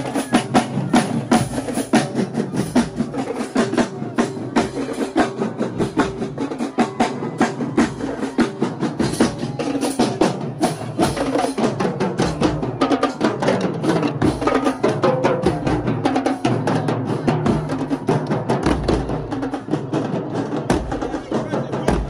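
Marching drumline playing a cadence: snare, tenor and bass drums in a dense run of rapid strokes with occasional deep bass-drum hits.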